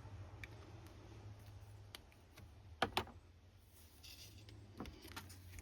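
A few sharp clicks over a faint low hum, two loud ones close together about three seconds in and a short cluster near the end, with a brief rustle just after the middle.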